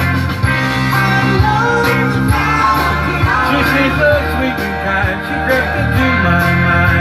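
A man singing along to a pop-rock backing track with guitar.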